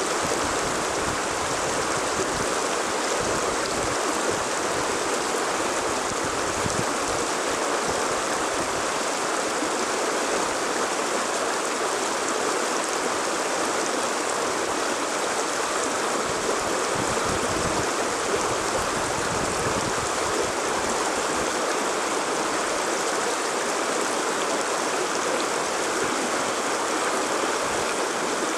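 Shallow stream flowing fast over and around rocks in a riffle: a steady, even rush of water.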